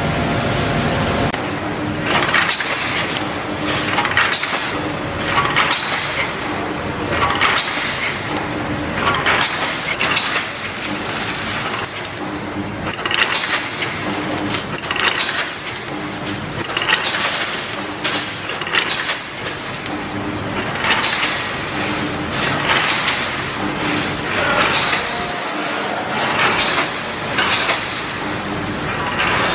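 A wire mesh welding machine for anti-climb fence panels running its automatic cycle: a clattering weld stroke repeats about every two seconds, with a short low hum between strokes.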